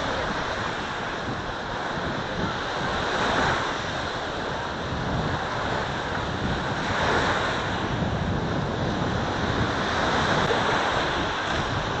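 Small sea waves breaking and washing up a sandy shore, swelling louder a couple of times, with wind rumbling on the microphone.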